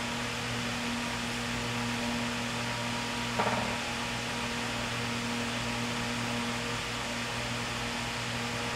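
Steady fan-like hum and hiss of a workshop background, with one brief knock a little over a third of the way in.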